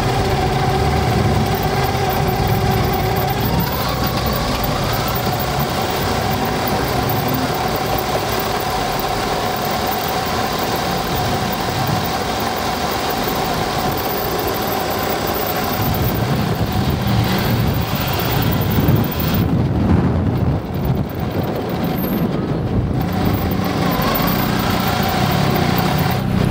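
Radio-controlled model car running over asphalt, heard from a camera mounted on it: a steady motor whine over tyre and road rumble, with a short rise in pitch about four seconds in.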